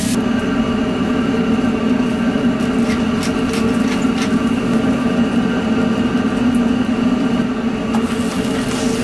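Steady, loud drone of a restaurant wok range's gas burner and ventilation, with a few faint ticks about three to four seconds in; a sizzling hiss from the wok picks up again near the end.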